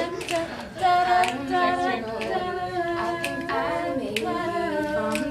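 A small group singing a cappella in harmony, with long held notes, and sharp clicks about once a second keeping time.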